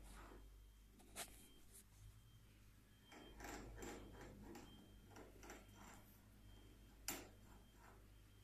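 Near silence: room tone with a faint low hum and a few faint clicks and rustles, the sharpest about a second in and another near the end.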